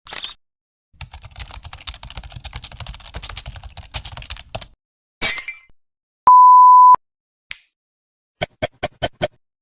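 A string of separate sound effects: computer-keyboard typing for about four seconds, a short noisy burst, then a loud steady beep tone lasting under a second, followed by a quick run of about six clicks near the end.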